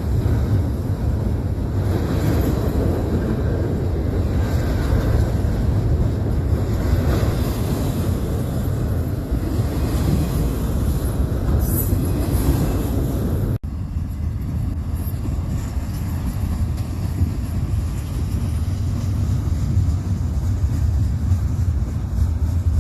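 Steady low rumble of a freight train rolling past, with wind buffeting the microphone. About two-thirds of the way in the sound cuts off suddenly and picks up again as a similar but duller rumble.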